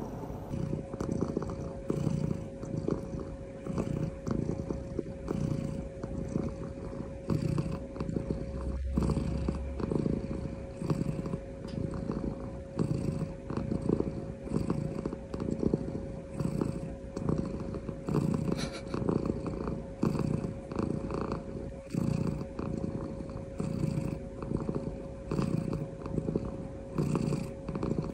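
Domestic cat purring steadily and close up, the purr swelling and fading with each breath about once a second.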